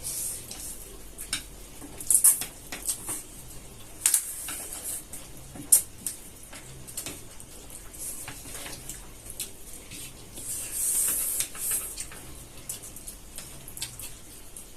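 People eating noodles with chopsticks: slurping and chewing, with scattered clicks of chopsticks against plates. A louder slurp comes about two seconds in, another about ten to twelve seconds in.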